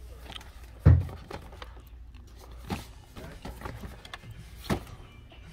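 Boxed action figures being handled and shuffled on a store pegboard display: cardboard-and-plastic packaging knocking and rustling, with a heavy thump about a second in and two sharper knocks later.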